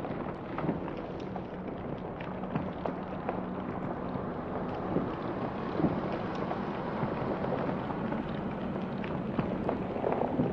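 Rough open-sea ambience from a ship's bow: a steady rush of wind and heaving waves, with many sharp ticks of water drops striking the camera and a faint low hum underneath.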